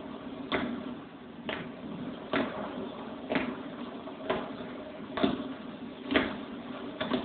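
Marching boots striking paving in a slow parade step, one sharp stamp about every second, over a steady low hum.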